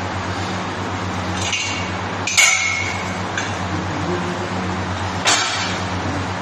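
Steel meat hooks clinking against the overhead rail as mutton carcass pieces are lifted and hung. There are two sharp metallic clinks that ring briefly, about two and a half and five seconds in, over a steady low mechanical hum.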